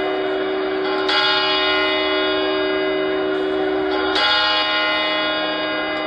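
Background music of ringing bell tones: a new bell chord is struck about a second in and again about four seconds in, each one ringing on steadily.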